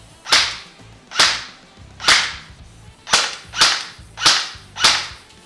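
SilverBack PP19 Bizon-2 airsoft electric gun firing single shots, seven in all at uneven intervals, each a sharp crack with a short ringing tail. Faint background music runs underneath.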